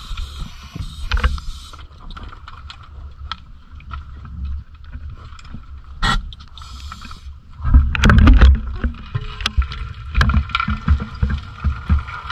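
Muffled underwater noise heard through a diving camera's housing: a low rumble with scattered clicks and knocks over a faint steady whine. The rumble grows louder and busier about eight seconds in.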